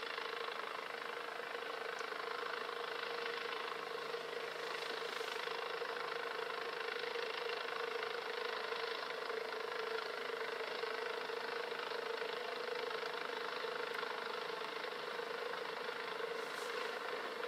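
Hughes 500D helicopter running steadily: an even engine-and-rotor drone with one constant pitch that does not change.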